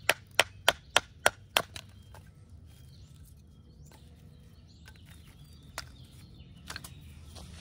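Bushcraft knife splitting a stick of kindling on a wooden chopping block: sharp, evenly spaced wooden knocks, about three a second, that stop about a second and a half in. Later come two lighter wooden clacks as split sticks are laid on a pile.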